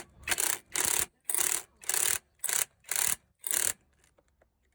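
Rhythmic back-and-forth rasping strokes of a hand tool rubbing on a surface, about two strokes a second, about eight in all, stopping suddenly near the end.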